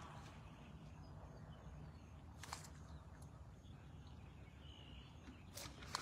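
Quiet waterside ambience: a faint low steady rumble, with sharp clicks about two and a half seconds in and again near the end, and a faint short bird chirp about five seconds in.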